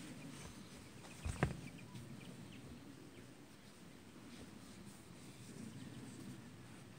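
A sneaker sole knocking once against a tiled floor about a second and a half in, over a faint outdoor background with a few faint bird chirps.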